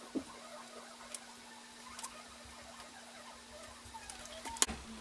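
Scattered small clicks and taps of hands working a glue bottle along a balsa trailing edge on a building board, the loudest click near the end. A faint steady hum runs underneath and stops at that click.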